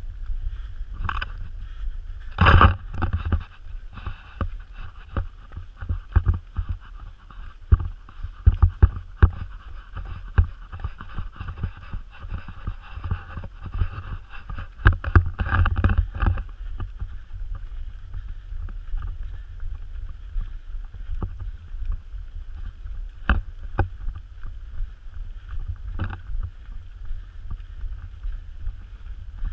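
Camera carried by a runner on a dirt forest trail: a steady low rumble of motion and wind on the microphone, with irregular thuds and knocks from footfalls and the camera jostling, in louder clusters a few seconds in and about halfway through.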